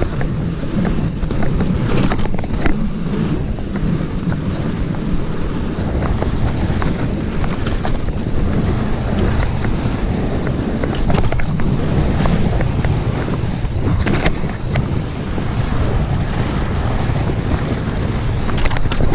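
Mountain bike descending a rough downhill trail, heard from a GoPro mounted on the rider. Wind rushes over the microphone, the tyres rumble over rock, and the bike rattles with frequent sharp knocks; a louder knock comes near the three-quarter mark.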